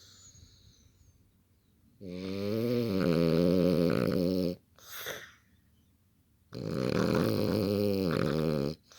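Dog snoring in its sleep: two long snores of about two and a half seconds each, with a short, softer breath between them.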